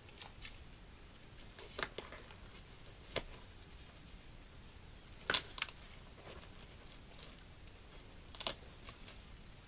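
A few sharp, isolated clicks over a faint background, the loudest a quick double click about five seconds in.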